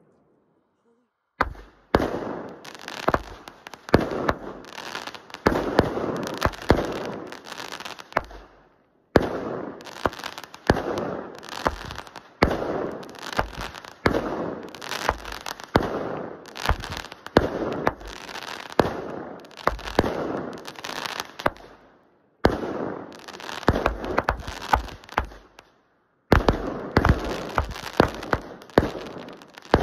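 A 200-gram consumer firework cake, Memory Fireworks' Northern Lights, firing shot after shot: rapid sharp bangs over continuous crackling. It starts about a second and a half in, after near silence, and breaks off briefly three times before firing again.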